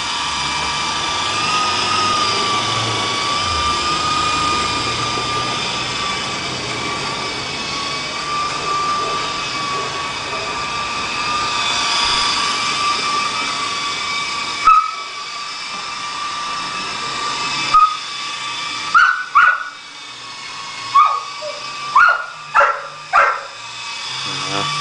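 Walkera HM 53-1 electric RC helicopter running with a steady high whine over rotor noise. About fifteen seconds in the rotor noise drops away, leaving the whine fainter. Near the end come six short, loud sounds, each rising in pitch.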